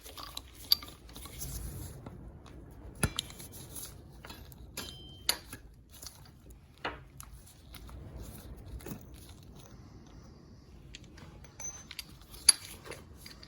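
Irregular clicks, taps and light metallic clinks of hand tools and small steel parts: brake pad retaining pins and a ratchet being handled at a motorcycle's rear brake caliper. One sharper clink comes near the end.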